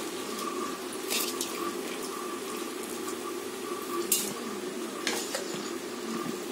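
Chicken masala broth boiling steadily in an open pressure cooker, bubbling, with a few short knocks about a second in and again around four to five seconds in.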